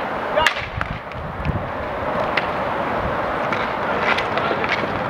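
Inline roller hockey play: skate wheels rolling and scraping on the rink floor, with sharp clacks of sticks and puck, the loudest about half a second in.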